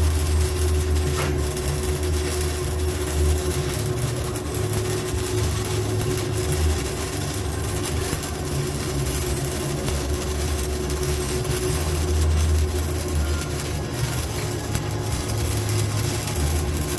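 6010 stick electrode arc burning steadily, laying a vertical-down weld: a harsh, continuous crackle and hiss over a low steady hum.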